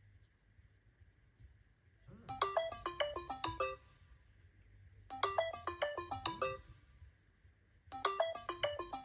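Samsung Galaxy phone ringtone: a quick melodic run of bright notes about a second and a half long, starting about two seconds in and repeating three times with short gaps.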